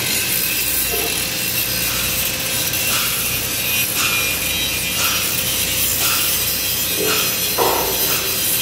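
Flux-cored arc welding on a steel beam: the steady sizzle of the welding arc.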